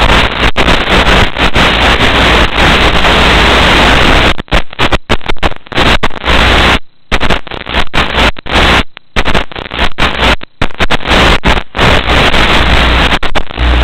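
Loud hiss of static from an analog FPV video link's audio channel, broken by many brief dropouts, most of them through the middle.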